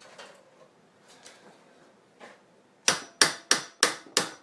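A hammer rapping on a steel puller: five sharp metal blows about three a second, each ringing briefly. They start near the end, after a few faint clicks.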